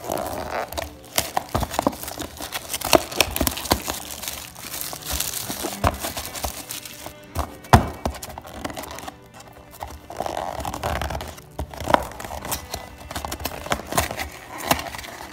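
Small cardboard box being pried and torn open by hand: fingers scraping and tapping at a stubborn flap, with sharp clicks and rustling tears of card, one click sharper than the rest about halfway through.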